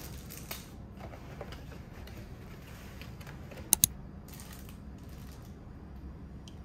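Small clicks and handling sounds as a cardboard takeaway box and a plastic-wrapped utensil are handled and the box is opened, over a low steady hum. Two sharp clicks, close together a little past the middle, are the loudest sounds.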